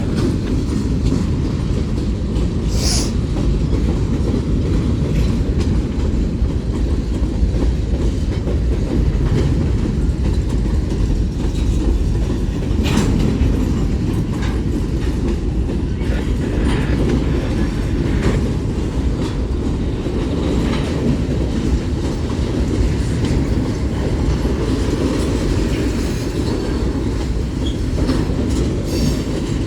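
Freight cars of a BNSF manifest train rolling past: a steady low rumble of wheels on rail. A few sharp clicks break through it, with a brief high squeal about three seconds in.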